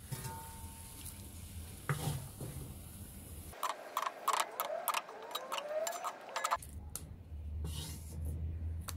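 Kitchen utensil scraping and clicking against a dish, over a steady low hum; about midway a run of sharper clicks and short squeaky scrapes.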